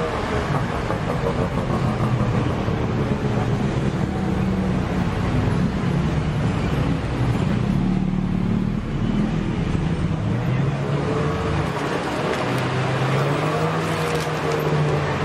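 Street traffic noise: motor vehicle engines running steadily on a city street.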